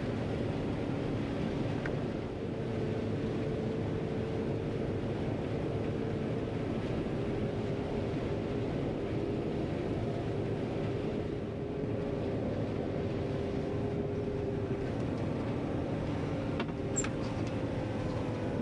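John Deere 9500 combine running steadily while harvesting corn: an even drone of engine and threshing machinery with faint steady hums, and a couple of light clicks near the end.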